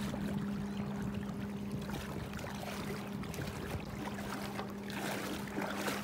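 Water lapping and trickling around stand-up paddleboards on a river, with a couple of brief splashier moments near the end. A steady low hum runs underneath.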